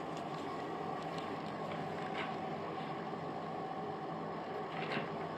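Steady mechanical hum with a few faint soft rustles, one about two seconds in and one near the end.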